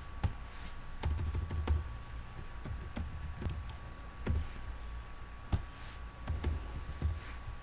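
Typing on a computer keyboard: irregular single keystrokes with short pauses between them, as values in a line of text are deleted and retyped.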